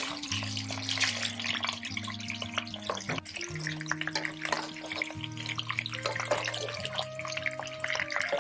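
Water running and splashing, as from a kitchen tap, under background music with slow, held notes.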